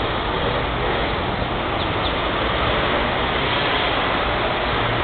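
Steady, even noise of city street traffic, with no distinct footsteps standing out.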